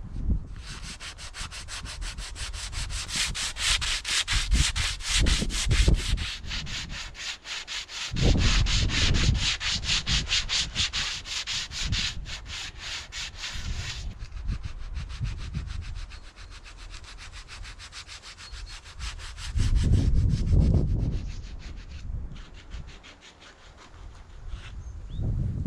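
Wood being sanded: a rapid, rhythmic rasping that eases off about halfway through, with two louder low rumbles along the way.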